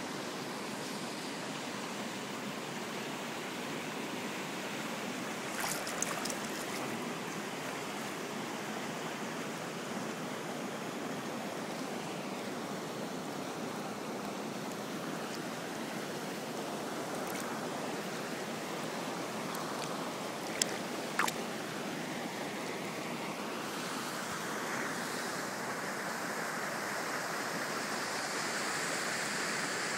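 Steady rushing of a shallow, rocky stream flowing over riffles. A few brief clicks come about six seconds in and twice around twenty seconds in.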